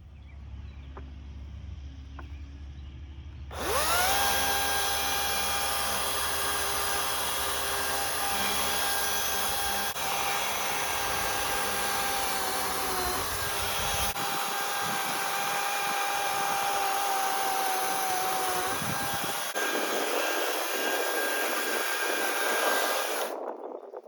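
An electric power tool motor spins up with a rising whine about four seconds in and runs steadily with a high hiss for nearly twenty seconds, then changes in sound and cuts off near the end.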